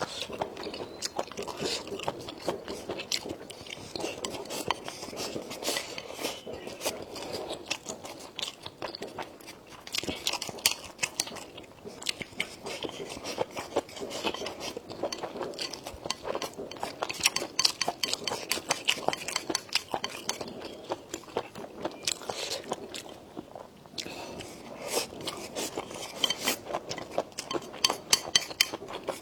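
A person chewing and crunching food, with many quick crackling clicks, and utensils clicking against a dish now and then.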